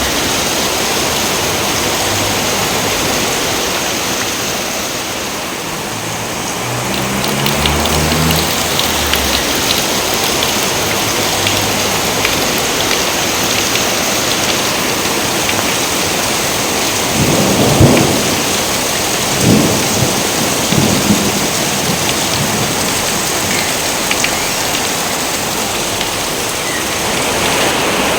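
Steady heavy rain falling, with thunder cracking three times within about three seconds a little past the middle.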